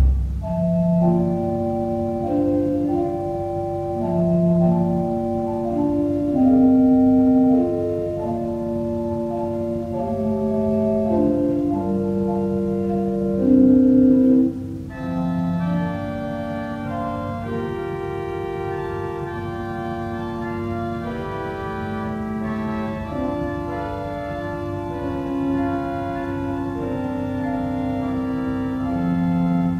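Church organ playing slow, sustained chords with moving inner parts. About halfway through, after a brief dip, the sound turns brighter and fuller.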